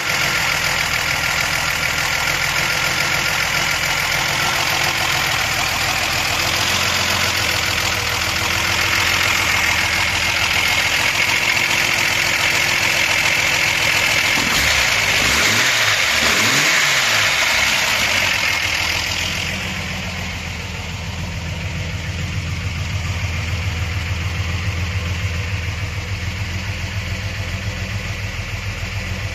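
Modified car engine idling steadily through a new exhaust. For the first two-thirds it is heard close to the open engine bay, with a loud busy mechanical and intake hiss; then the hiss drops away and the low exhaust rumble comes forward.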